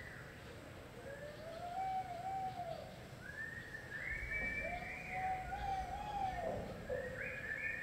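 Spectators whooping and hollering: long rising-and-falling "woo" calls, one after another and overlapping, starting about a second in and growing busier toward the end.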